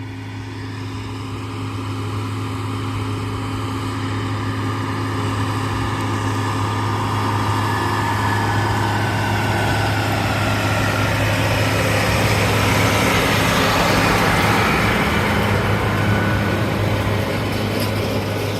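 Tractor engine running steadily under way, with a rushing noise that builds to its loudest about two-thirds of the way through, then eases slightly.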